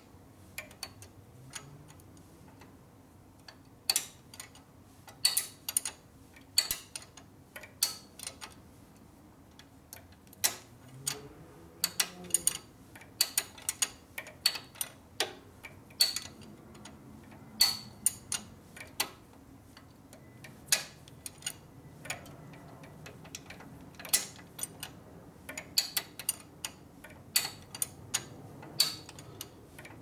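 A metal wrench clicks against a bolt and the engine's metal in short, irregular taps as a tight bolt on a Harley-Davidson engine is worked loose a bit at a time.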